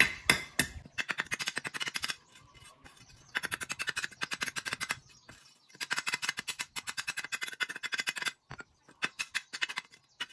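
Claw hammer rapidly tapping opal chips against a steel plate, crushing the stone into small grains: fast runs of sharp metallic taps broken by short pauses, thinning to scattered taps near the end.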